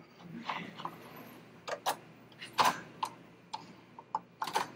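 Irregular light clicks and knocks of the metal hat driver for a Baby Lock cap frame being shifted and seated on the embroidery machine by hand, with a sharper knock about two and a half seconds in and another near the end.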